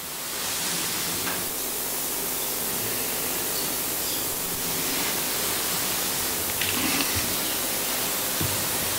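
Steady background hiss with no speech, broken only by a few faint soft knocks.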